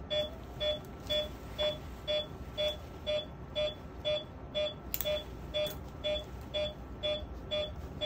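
Anesthesia monitor beeping steadily about twice a second, one short mid-pitched beep per heartbeat of the anesthetized dog.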